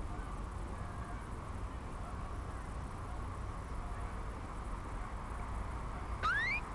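Outdoor ambience: a steady low rumble and hiss. Near the end, a short rising animal call.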